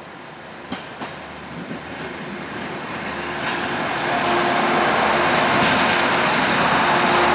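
An ALn 668 diesel railcar approaching and passing over a level crossing. Its engine and wheels grow steadily louder for about four seconds, then run loud and steady with a droning hum. There are two sharp clicks about a second in.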